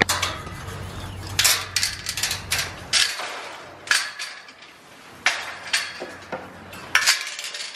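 Irregular sharp metallic clanks and clicks, a dozen or more, some ringing briefly, around a goat pen's galvanized metal gate.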